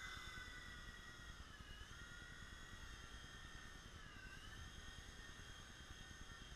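WL911 micro RC helicopter's small electric motors whining faintly and steadily at a high pitch, dipping briefly in pitch twice.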